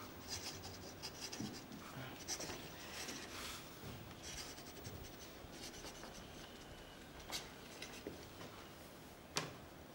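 Faint paper rustling as the pages of a magazine are handled and turned, in short scattered bursts, with one sharp tap near the end.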